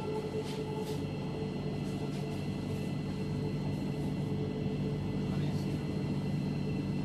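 Cabin sound of a Thameslink Class 700 electric multiple unit running slowly into a station: a steady low hum from the train with a faint even whine above it.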